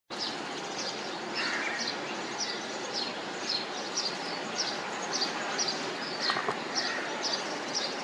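A bird calling over and over in short, high, slightly falling chirps, about two a second, over a steady background hiss.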